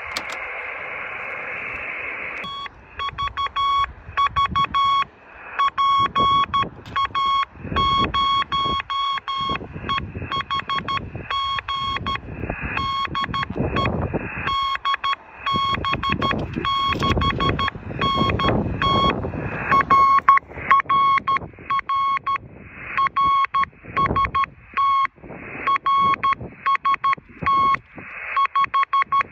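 Morse code keyed by hand on a straight key, heard as a tone of about 1 kHz from a Yaesu all-mode transceiver's speaker, switching on and off in short and long elements. It follows about two seconds of radio receiver hiss.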